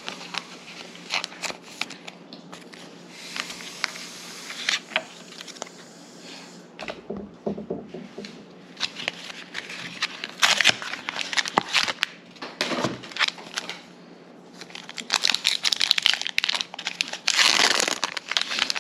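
Foil booster-pack wrappers being torn open and crinkled, an irregular crackling with louder bursts about ten seconds in and again near the end.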